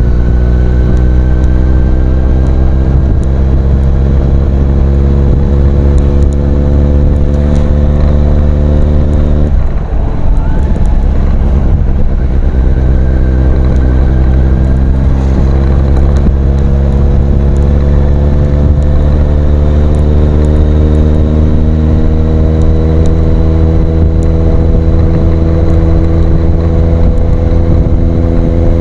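Kawasaki Z800's inline-four engine through an aftermarket IXIL exhaust, pulling under steady acceleration with its note slowly rising. About ten seconds in the note drops sharply with a gear change, then rises slowly again.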